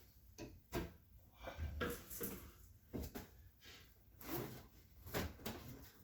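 Irregular clicks, knocks and light rustling from hands handling small tools and parts at a workbench while preparing to splice a power adapter cable.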